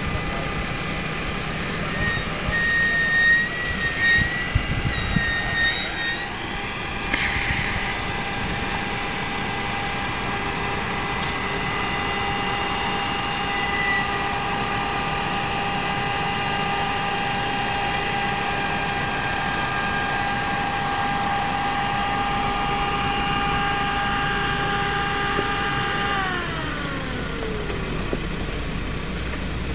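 Lada Niva off-roader driving on a sandy track, its engine and drivetrain held at steady revs with a high whine for a long stretch. The whine falls in pitch near the end as the revs drop. There is wind rumble on the microphone in the first few seconds.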